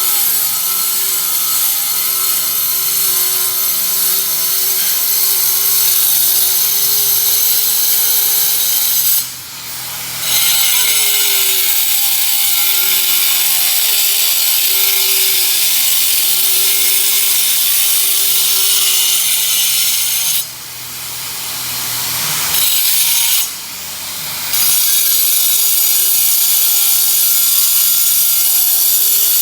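Electric power tool with a high motor whine cutting steadily. It drops away briefly three times, once about a third of the way in and twice more past the two-thirds mark, then picks up again.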